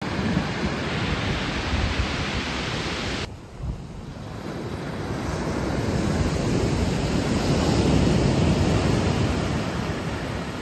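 Sea waves washing onto a pebble beach, a steady rushing surge. About three seconds in the sound drops abruptly, then a wave swells louder, peaking near the end before easing back.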